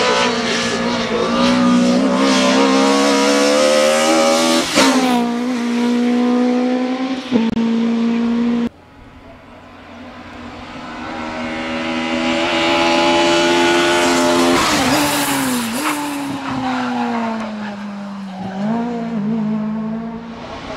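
VW Polo 16V hillclimb car's four-cylinder engine at high revs, shifting up twice. After a sudden cut the car approaches and the engine rises to full revs. It then falls steadily in pitch as the driver lifts off for a corner, with short throttle blips on the downshifts near the end.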